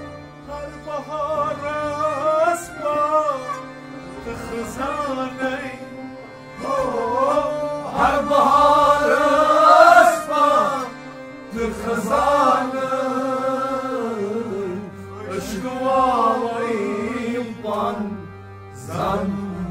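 Live Kashmiri Sufi song: a male voice singing long, wavering, ornamented phrases, with brief pauses between them, over a steady low drone and instrumental and percussion accompaniment.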